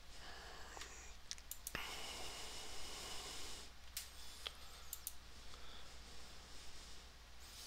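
Several faint computer mouse clicks, a cluster in the first two seconds and a few more about five seconds in, over a low steady hum.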